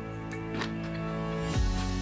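Background music: held chords with light percussion, and a low drum beat coming in near the end.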